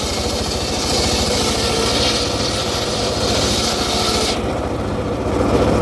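Engine-driven circular saw cutting through acacia wood, a harsh rasping hiss over the steady running of the engine; the cut ends about four seconds in and the engine keeps running.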